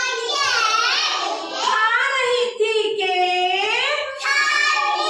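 A child singing a Hindi nursery rhyme in a high, clear voice, with held notes that glide up and down.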